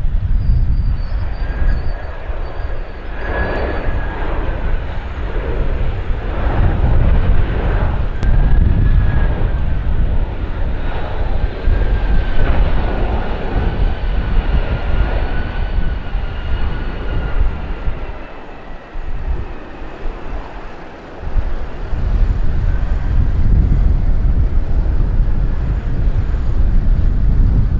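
Jet engines of the Boeing 747-400 Supertanker airtanker flying low: a deep rumble with a thin high whine that wavers in pitch. It dips briefly about two-thirds of the way through, then builds again.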